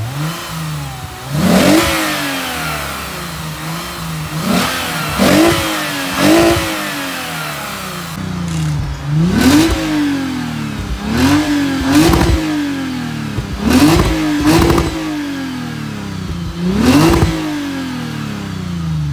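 Lexus RC350's 3.5-litre V6 through a newly fitted Greddy aftermarket exhaust with quad tips, blipped about ten times at standstill. Each rev climbs sharply and falls straight back to idle, sometimes two in quick succession.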